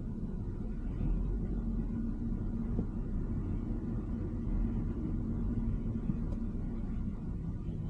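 Steady low rumble of a car driving in slow city traffic, engine and road noise.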